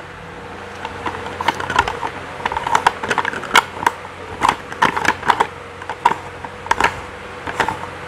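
Plastic parts of a green hand-cranked juicer clicking and clacking as they are handled and fitted together: irregular sharp clicks, a few a second.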